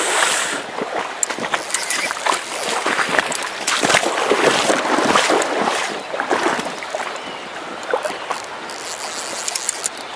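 Water of a shallow stony stream running, with irregular splashing through it, louder in the first half and easing after about six seconds.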